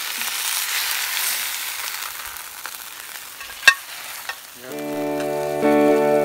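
Whole sea bass sizzling on a hot plancha as metal spatulas lift it off, the sizzle fading away; a sharp clink of a spatula about three and a half seconds in. Guitar music comes in near the end and becomes the loudest sound.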